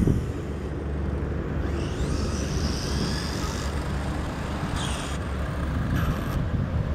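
Electric 1/10-scale RC desert buggy running on asphalt, its motor whining faintly as it rises and falls in pitch with the throttle, over a steady low rumble.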